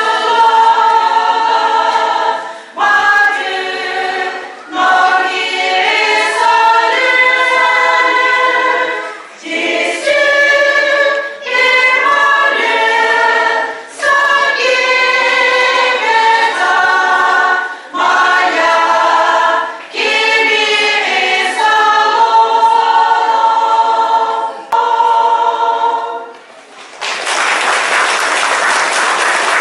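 Women's choir singing together, apparently unaccompanied, in phrases broken by short breaths. The song ends about 26 seconds in, and applause follows for the last three seconds.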